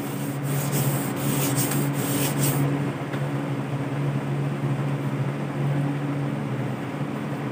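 Whiteboard duster rubbing across a whiteboard in a quick run of wiping strokes, stopping about two and a half seconds in, over a steady low hum.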